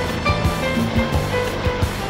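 Background music with a steady beat: a drum pulse of about three to four strokes a second under a bass line and held melody notes.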